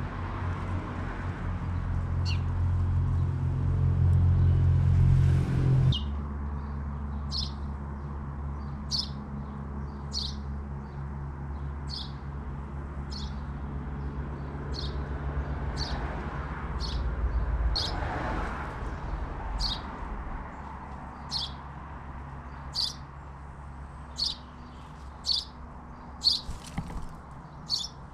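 A European robin's short, sharp calls, repeated about every second or so and getting louder near the end, over a low rumble of distant traffic that is loudest in the first few seconds.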